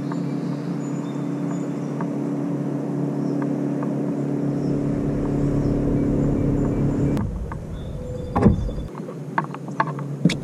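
A boat motor's steady hum that cuts off abruptly about seven seconds in, followed by a few knocks and thuds on the boat.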